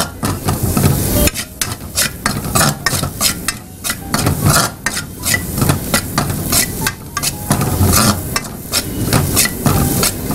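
Metal spoon stirring and scraping food in a brass pan on a gas stove, in repeated irregular strokes a few times a second.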